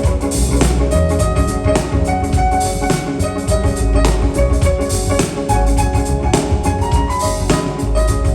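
Jazz piano trio playing: busy drum kit, a strong bass line and piano chords, with a short rising run of notes about six to seven seconds in.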